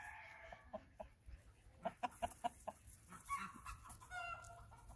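Chickens clucking, with short pitched calls near the start, past the middle and near the end, and soft clicks between.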